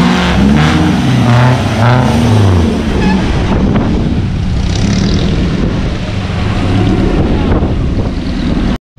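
Off-road 4x4 engine revving in repeated short rises and falls, then running steadily at high revs. The sound cuts out for an instant near the end.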